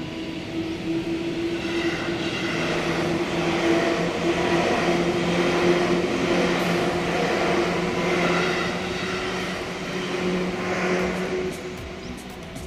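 Electric commuter train running past over a level crossing: the rumble and clatter of its wheels on the rails swells, stays loud through the middle, and fades away near the end as the train clears the crossing.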